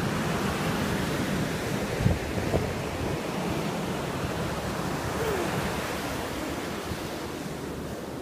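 Ocean surf breaking and washing up the beach: a steady rushing with no pause, mixed with some wind on the microphone.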